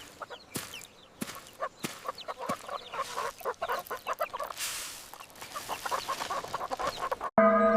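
Chickens clucking in a rapid run of short calls. Near the end a large bell is struck and rings on with several steady tones.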